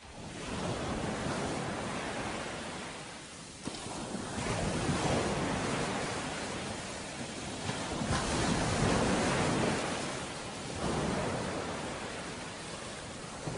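Ocean surf: waves rolling in and washing back, swelling and fading about four times.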